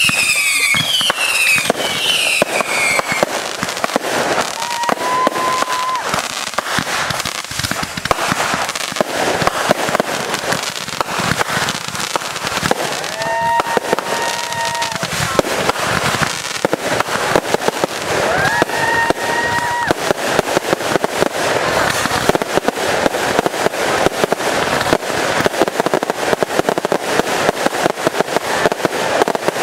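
Consumer fireworks going off in rapid, continuous crackling and popping. Whistles fall in pitch over the first few seconds, and three later whistles each rise and then hold a steady note for one to two seconds.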